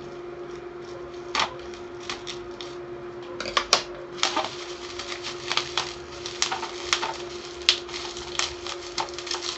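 Plastic bubble wrap crinkling and crackling as it is handled and pulled open from around a boxed RAM kit, with irregular sharp clicks, sparse at first and then dense from about three and a half seconds in.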